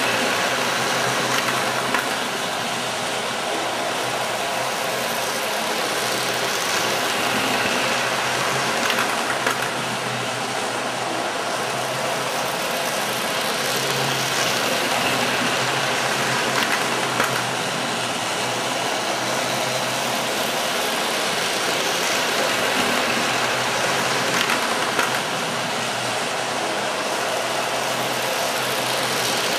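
Wrenn OO-gauge Princess Coronation model locomotive and its coaches running round the track, giving a steady electric motor hum and wheel rumble, with occasional clicks as the wheels cross rail joints.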